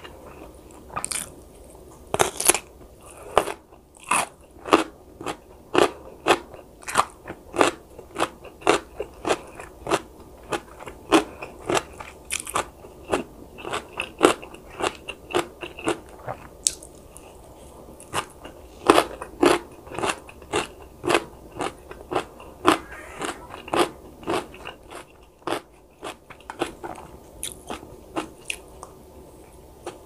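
Close-miked chewing with crisp crunches at about two a second, pausing briefly past the middle before starting again.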